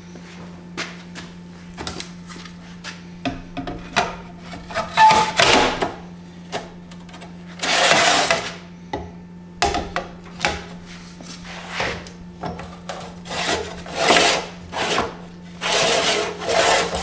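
A spirit level and stainless steel boxes being handled on a steel plate: a string of taps and clicks with several longer scraping, rubbing sounds as they slide against the metal. A steady low hum runs underneath.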